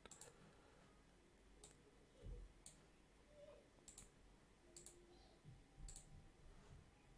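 Faint computer mouse clicks, about six of them spread out, with a soft low thump about two seconds in.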